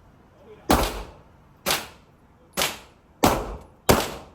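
Five handgun shots, roughly one every three-quarters of a second, each sharp crack followed by a short echoing tail.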